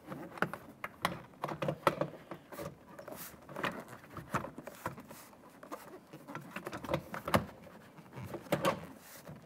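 Irregular light taps, clicks and scrapes of a door trim panel being held against a car door and shifted to seat its top edge into the ridge along the top of the door.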